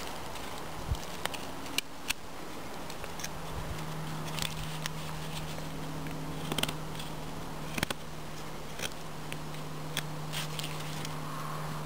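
Blind Horse Knives Pathfinder knife carving a notch into a branch: irregular sharp clicks and short scrapes as the blade bites into and shaves the wood.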